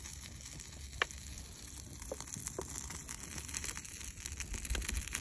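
A small fire of plastic bottles and food wrappers crackling, with a few sharp pops (the clearest about a second in) over a faint steady hiss and a low rumble.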